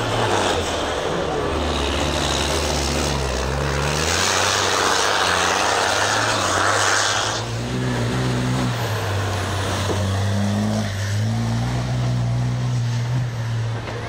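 Dakar rally trucks' diesel engines running hard on a muddy course, the engine note stepping up and down as they accelerate and shift. A loud rushing noise joins the engines about four seconds in and lasts about three seconds.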